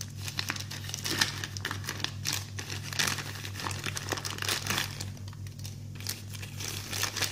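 Packaging crinkling and rustling in irregular bursts as a small mail package is opened by hand.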